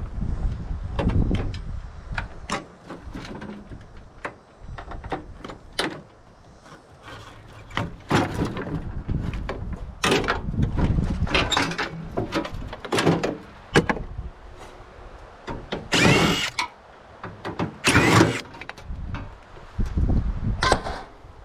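Irregular clanks, knocks and scrapes of sheet metal and parts being handled as a microwave is stripped for scrap, with two longer, louder scraping rattles about 16 and 18 seconds in.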